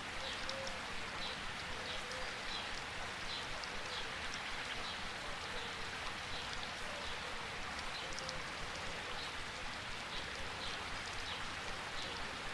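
Steady rain falling on foliage, with a short high chirp repeating about twice a second over it.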